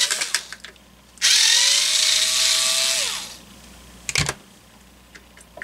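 Power drill/driver running for about two seconds, its motor whine rising slightly and then falling away as it stops, backing out the screw that holds the fan motor's capacitor. A single knock follows about four seconds in.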